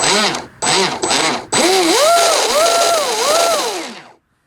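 4082 brushless motor of an RC boat revved on the bench by throttle blips, out of the water. Three short rev-ups rise and fall in pitch, then a longer run rises, holds and dips twice before winding down about four seconds in. A thin, steady high whine sits over each rev.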